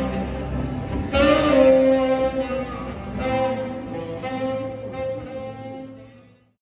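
Instrumental music with long held melody notes, fading out to silence near the end.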